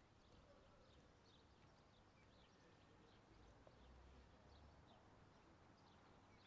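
Very faint outdoor ambience with small birds chirping over and over in short high notes, over a low distant rumble.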